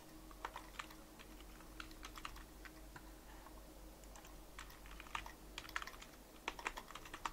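Typing on a computer keyboard: quiet keystrokes in short runs with pauses between them, over a faint steady hum.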